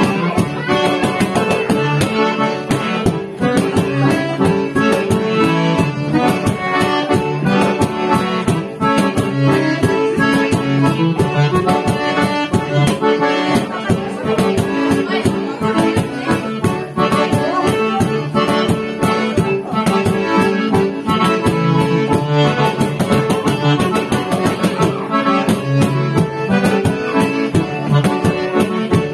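Accordion music played continuously, with a steady percussive beat throughout.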